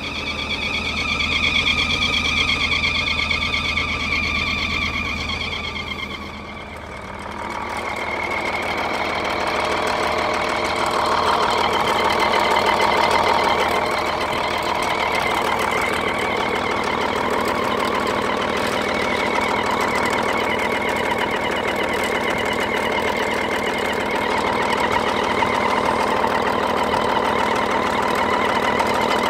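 Old semi truck's engine running steadily after being jump-started, with a high whine over it. The alternator belt is slipping and burning on a seized alternator that is not spinning. The engine dips briefly about six seconds in, then runs on.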